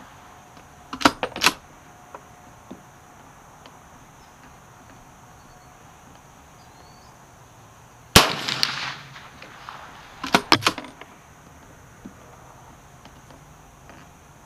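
A single shot from a Marlin Model 62 short-stroke lever-action rifle in .30 Carbine about eight seconds in, firing a handloaded 100-grain lead-tip hunting round, with a ringing tail of about a second. Quick runs of sharp metallic clicks about a second in and again two seconds after the shot, the lever action being worked.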